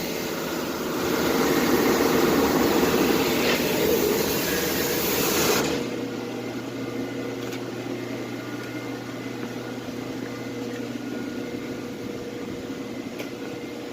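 Gas pressure washer running with a loud rushing noise that cuts off suddenly about six seconds in, leaving a quieter steady engine hum.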